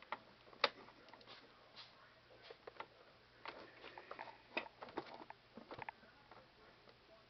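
Faint, irregular light clicks and rustles of handling noise, mostly in the second half.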